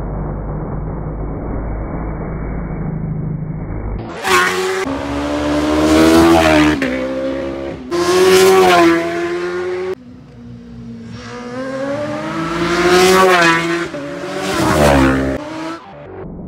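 Race superbike engines screaming past at full throttle, the note climbing and dropping at each gear change, after a low rumble of a bike approaching.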